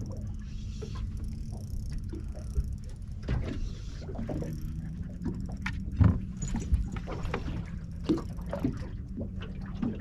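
Small boat on the water: irregular knocks and water slaps against the hull over a steady low hum, with the sharpest knock about six seconds in.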